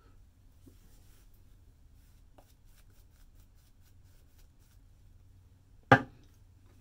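Gillette Fatboy adjustable double-edge safety razor scraping lathered stubble in a run of faint, quick strokes, then one loud, short knock nearly six seconds in.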